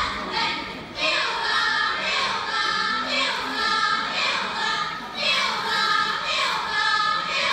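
Children's voices singing in short, high phrases that fall in pitch, repeating about once a second.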